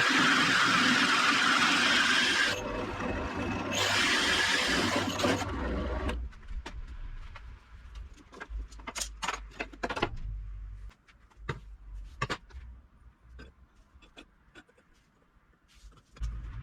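A power tool running loudly in two spells with a short break just before the middle, then cutting off about five seconds in, followed by scattered sharp clicks and knocks of metal parts being handled.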